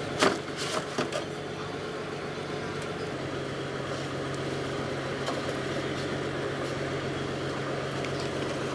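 A steady low mechanical hum, like a motor running, with a sharp knock just after the start and a lighter knock about a second in.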